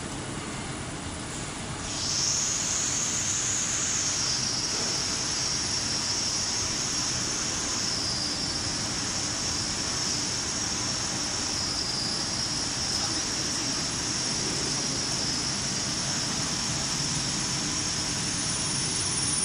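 600 mm two-colour flexographic printing press running with a steady mechanical rush. About two seconds in it gets louder and a high whine sets in and holds.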